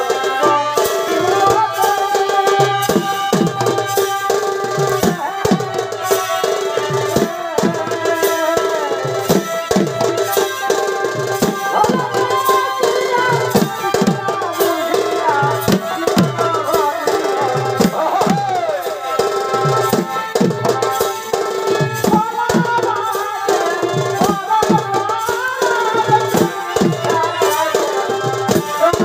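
Chhau dance music: drums keep a steady beat under a high, wavering melody line that slides between notes.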